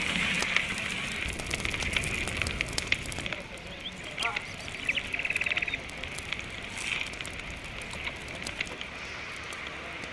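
Wood fire crackling with many sharp pops for the first three seconds or so as the tray goes into the wood-fired oven, then a quieter outdoor background with a couple of short bird calls about four to five seconds in.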